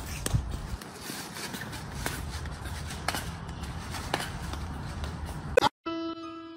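Footsteps on paving, about one step a second, over an outdoor background hiss. Near the end the sound cuts out briefly and a light electric piano tune begins.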